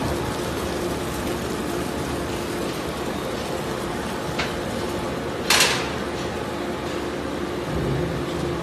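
Waste shredding line and belt conveyor running with a steady machine hum, shredded waste pouring off the roller onto the conveyor. A brief loud clatter about five and a half seconds in.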